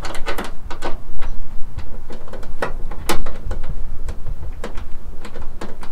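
Irregular clicks and scrapes of a sheet metal screw being turned by hand into a plastic rear wheel well liner, with the liner flexing against the wheel arch. One louder click comes about three seconds in.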